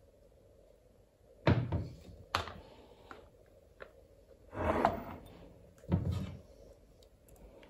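Glass jam jars and a plastic funnel knocking as they are set down and moved about on a wooden board while jars are filled: four separate knocks, the third one longer and rougher.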